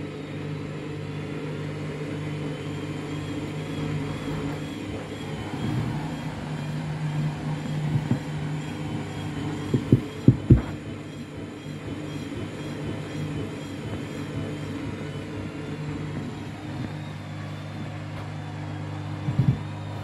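Candy front-loading washing machine running with a full load of wet towels, its motor humming steadily as the drum turns. A few heavy knocks from the drum and load break through: a couple around halfway, and another near the end.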